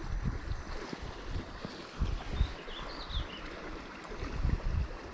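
Small mountain creek running, a steady rush of water, with irregular low rumbles of wind on the microphone.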